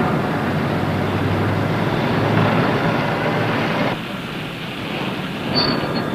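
Motor vehicle running, a steady rumble that gets softer about four seconds in, with two short high chirps near the end.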